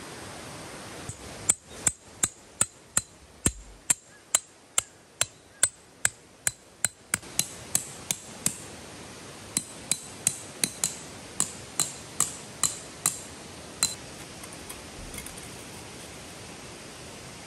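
Hammer driving a metal tent stake into the ground: steady sharp clinking blows, about two or three a second, in two runs with a short pause about eight seconds in. A stream hisses steadily behind.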